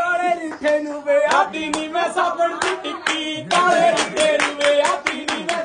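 Punjabi boliyan (folk couplets) sung by voices in a small room, with steady hand-clapping keeping time at about three claps a second.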